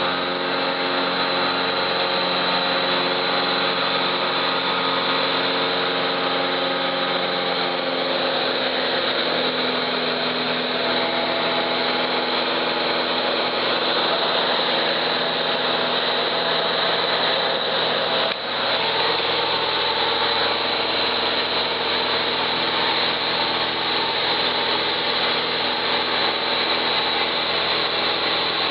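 Small seaplane's piston engine and propeller running steadily in flight, heard from inside the cabin. The engine note shifts slightly about nine seconds in.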